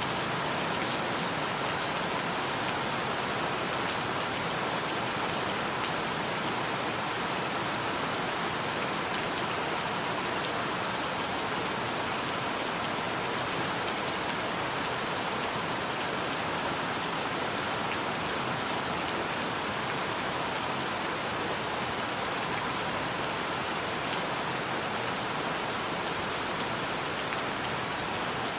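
Steady rain falling, an even hiss with faint scattered drop ticks and no change in intensity.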